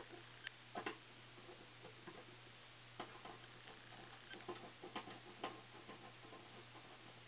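Faint scattered clicks and light handling noises of hands working a wire and small hand tools, over a low steady hum.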